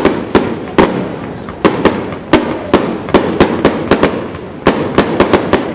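Aerial fireworks bursting in a rapid, irregular series of sharp bangs, about three a second, each trailing off into a rumbling echo.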